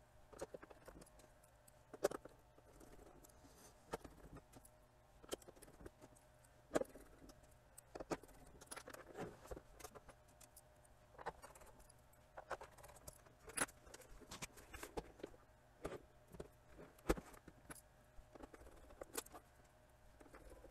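Plastic case of a portable DVD player being handled, turned over and reassembled on a workbench: irregular light clicks, taps and small rattles, with a sharper knock about two seconds in and another near the end.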